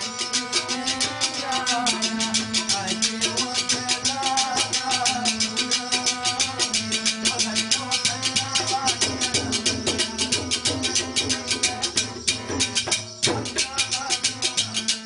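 Tabla being played in a rapid, even stream of strokes over a harmonium holding and moving through a melody. The drumming breaks off for a moment near the end, then picks up again.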